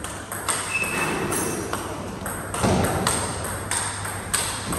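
Table tennis rally: the ball clicks back and forth off the paddles and the table top, about two clicks a second, with a heavier thud nearly three seconds in.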